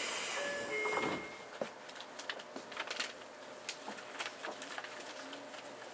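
Tokyo Metro 8000-series train standing with its chopper silent. A hiss and a few short electronic tones end about a second in, then a quiet background of scattered clicks and knocks.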